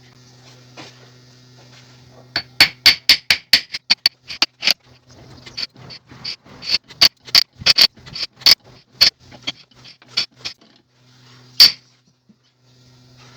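Metal parts of a car's rear differential being fitted by hand during reassembly: a long, irregular run of sharp metallic clicks and taps, two or three a second, then one loud knock near the end, over a steady low hum.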